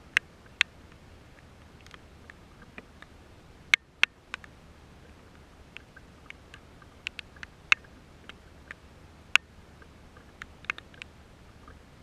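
Raindrops tapping close to the microphone: irregular sharp ticks, a few louder than the rest, over a faint steady background hum.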